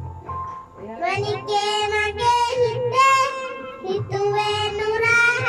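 A young boy singing into a microphone in long held notes, with short breaks between phrases.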